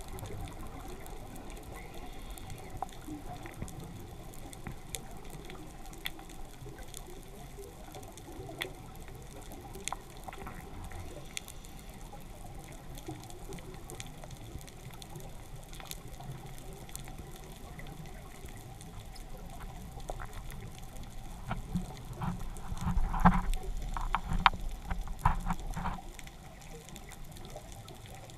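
Underwater ambience heard through a camera's waterproof housing: a steady muffled hiss with scattered sharp clicks, and a louder cluster of knocks and low rumble for a few seconds near the end.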